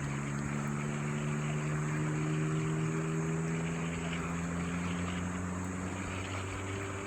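Steady drone of a distant engine whose pitch drifts slightly up and then back down, over a constant outdoor hiss.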